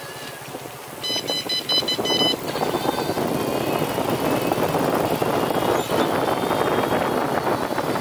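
Steady rushing wind and road noise from moving along at riding speed, getting louder about a second in. A brief cluster of high steady tones comes between one and two seconds in.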